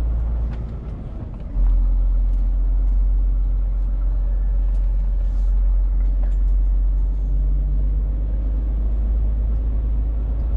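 Scania truck's diesel engine running under way, heard inside the cab as a steady low rumble that steps up louder about one and a half seconds in and then holds.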